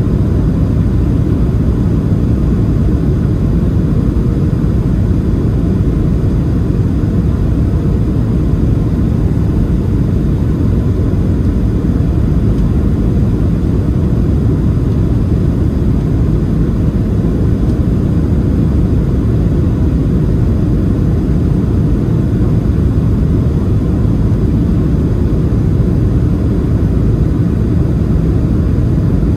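Boeing 737-700's CFM56-7 engines and rushing air, heard inside the passenger cabin on final approach: a loud, steady, low roar.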